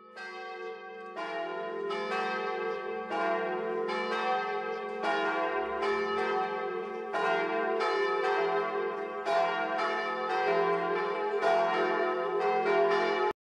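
Church bells ringing, a new strike about every second over a lingering hum, cutting off suddenly near the end.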